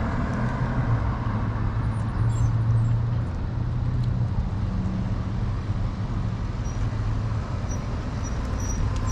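Car traffic moving through a parking lot, with a steady low hum. Faint high chirps repeat evenly in the second half.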